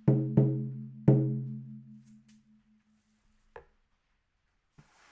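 16-inch steer-skin shaman frame drum struck three times with a padded beater, two quick beats and then a third, each leaving a low, deep ring that fades away over a couple of seconds. The skin is at about 50% humidity. A small click follows as the ring dies.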